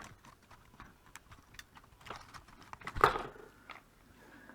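Scattered small clicks and taps of hand tools working on a circuit board while a capacitor is taken out, with a sharp click at the start and a louder clatter about three seconds in.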